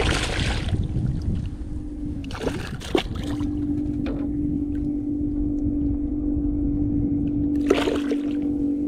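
A hooked snook splashing and thrashing at the surface beside a small skiff: a burst of splashing at the start and another near the end, with a sharp knock about three seconds in. A steady hum and low rumble run underneath.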